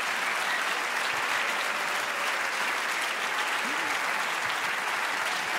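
Large theatre audience applauding steadily, a thick, even clatter of many hands clapping.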